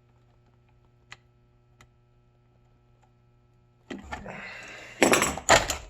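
A steady low hum with a couple of faint ticks. About four seconds in comes handling noise from the Samsung ice maker's auger drive assembly: a scraping rustle, then several loud clattering knocks of metal and plastic parts.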